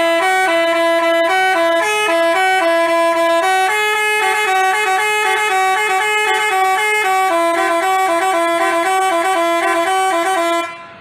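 Basuri telolet horn, a multi-tone bus horn, playing a quick melody of changing notes without a break, then cutting off abruptly near the end.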